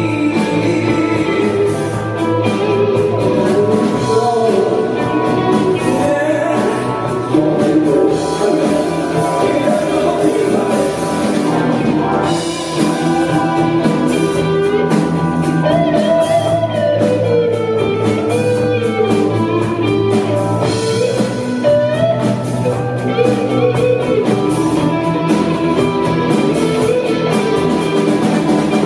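A live rock band playing a song: guitar and drum kit with a sung melody over them, loud and continuous.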